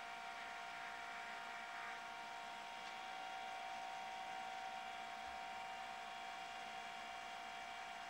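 Wood lathe running faintly with a steady whine. For the first two seconds a soft rubbing hiss as a stick polish is pressed against the spinning wooden pen blank.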